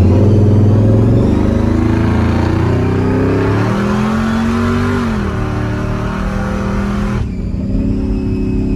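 Supercharged big-block Chevy V8 running under throttle as the truck accelerates. The engine note climbs in pitch, dips about five seconds in, then climbs again. The harsher upper part of the sound cuts off suddenly about seven seconds in, leaving a lower steady running note.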